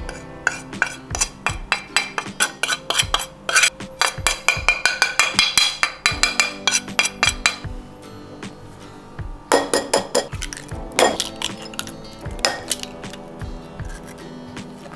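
A metal spoon tapping and scraping against a ceramic plate and a glass bowl, a rapid run of clinks for the first seven seconds or so as spices are knocked off the spoon. Then a few sharper knocks around ten and eleven seconds in, as eggs are cracked into the glass bowl. Background music plays throughout.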